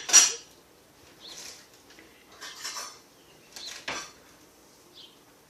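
A few light clattering knocks and clinks, like hard objects being bumped. The loudest is at the very start and a sharp single knock comes about four seconds in.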